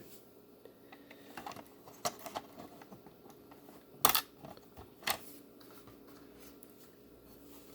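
Scattered light clicks and taps of VHS cassettes and small items being handled and set down, with a sharper knock about four seconds in and another about a second later.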